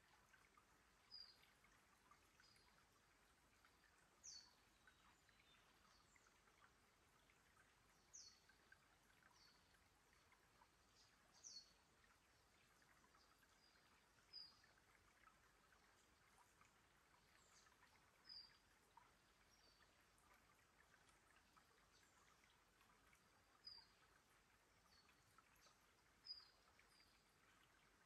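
Faint trickle of shallow water running between rocks in a creek bed, with a bird giving short, high chirps every few seconds.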